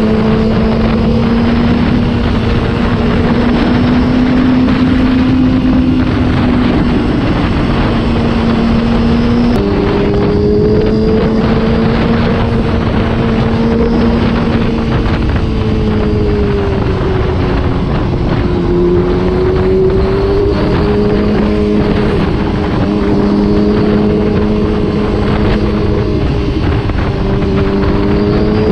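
Sport motorcycle engine running at steady highway speed with a droning note, heard from the rider's camera under rushing wind noise. The engine note changes abruptly about a third of the way in, then dips and rises again later.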